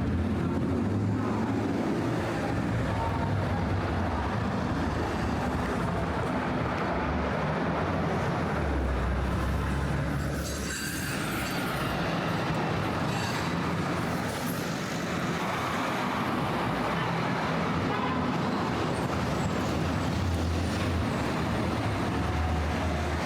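City street traffic: cars and other vehicles running past over a steady low rumble, with a short hissy burst about ten seconds in.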